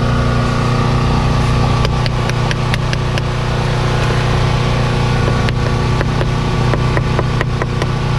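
A motor running steadily at a constant hum, with scattered sharp metallic clicks and knocks over it.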